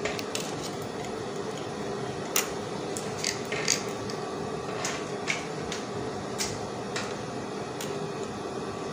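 Scattered light clicks and rustles of fabric and pins being handled and positioned under a sewing machine's presser foot, over a steady hum.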